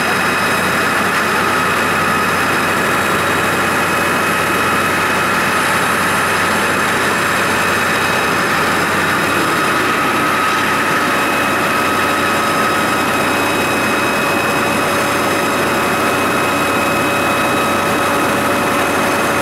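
The large circular diamond blade of a Maqpi V-1500-II semi-automatic stone-slabbing saw cutting through a block of cantera stone under a stream of cooling water. It makes a steady grinding hiss with a high whine held through it.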